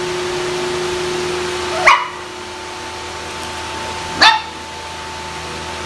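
Puppies giving two short, high yaps, a couple of seconds apart.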